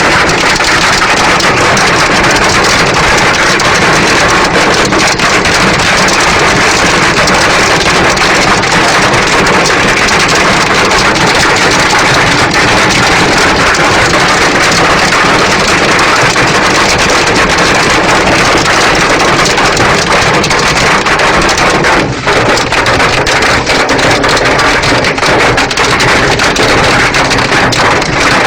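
Heavy rain falling steadily: a loud, dense, even hiss, with a brief drop about 22 seconds in.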